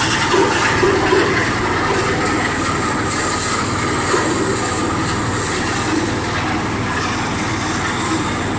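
Rice milling machine running steadily, a loud, even mechanical noise that doesn't change.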